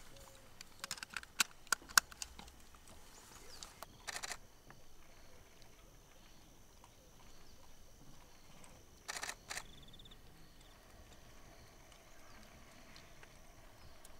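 Camera shutters clicking: several single sharp clicks in the first two seconds, then short rapid bursts about four seconds in and again about nine seconds in.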